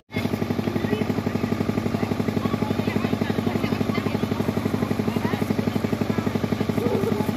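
An engine running steadily with a fast, even throb. Faint crowd voices are mixed in behind it.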